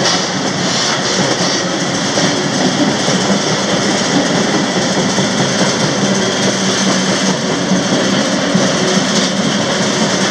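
Freight train rolling along: steady, loud rumble and rattle of steel wheels on the rails.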